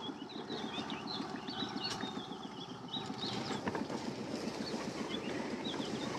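Small outboard motor idling with a fast, even putter, while birds chirp in the mangroves above it.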